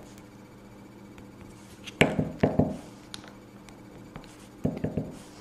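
Short clicks and taps of nail-art tools and long acrylic nails against a plastic nail tip and its holder while dots of paint are placed: a cluster of sharp knocks about two seconds in and another pair near the end.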